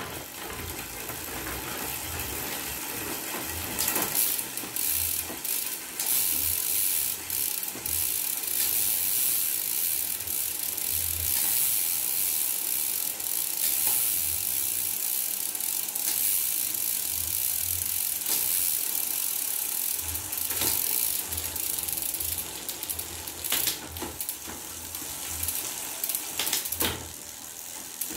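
Bicycle drivetrain running with the rear wheel spinning off the ground: chain whirring over a 9-speed 11-46t cassette as a Shimano Sora rear derailleur shifts from the smallest cog toward the largest, with a short click every few seconds as it changes gear.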